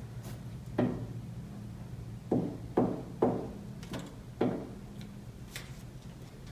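Glue stick and fingers pressing paper cut-outs onto paper on a tabletop, giving about six short knocks, several close together in the middle, over a steady low hum.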